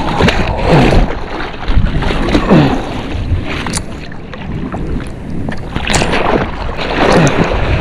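Ocean water sloshing and splashing against a waterproof action camera held at the surface beside a surfboard, with wind buffeting the microphone and a couple of sharper splashes.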